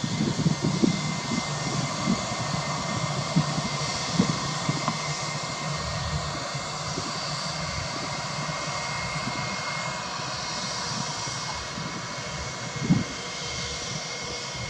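Airbus A321 jet engines running with a steady whine over a broad rush of engine noise as the airliner moves along the runway. Low thumps of wind hit the microphone now and then, the biggest near the end.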